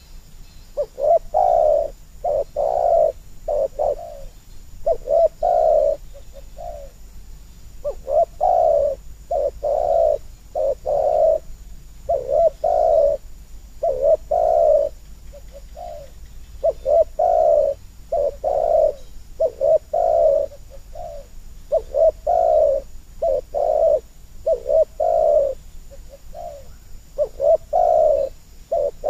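Spotted dove cooing its song over and over: about eight phrases of three or four low coos each, a few seconds apart.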